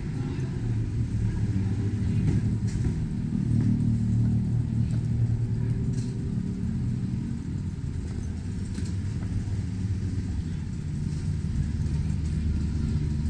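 Low, steady rumble of road traffic, with vehicle engines running.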